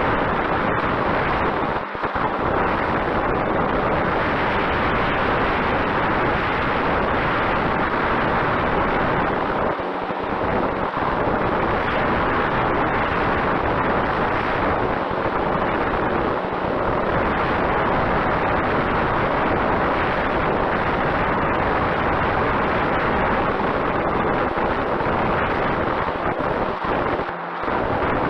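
Strong wind buffeting the microphone: a loud, steady rush of noise that dips briefly a few times.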